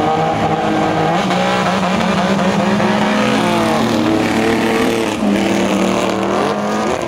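Autocross race cars' engines revving hard on a dirt track, several at once, the revs repeatedly climbing and dropping.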